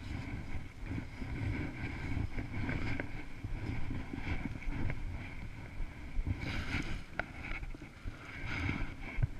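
Wind rumbling and buffeting on a small camera's microphone as the camera is carried through the snow, with a few light knocks near the end.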